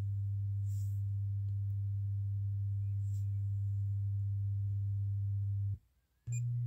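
Spatial Audio M2 Turbo SE open-baffle speaker sounding the LCR meter's 100 Hz test signal as a steady low tone while its impedance is measured at about 4 ohms. The tone cuts off near the end and, after a brief gap, comes back slightly higher at 120 Hz.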